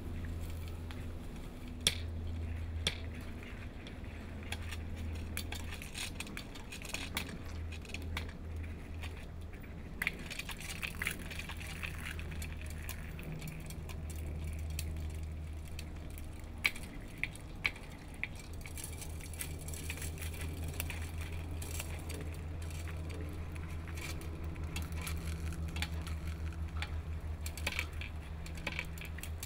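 Glass mirror tiles clinking and ticking under a person's feet as they step across them, scattered sharp clicks. A low steady hum runs underneath and turns into a fast throb in the last third.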